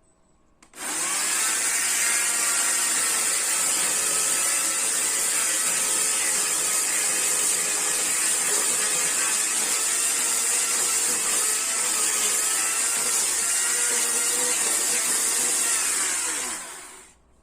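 Chainsaw cutting wood. It starts abruptly about a second in, runs steadily for about sixteen seconds, then winds down with a falling pitch and stops near the end.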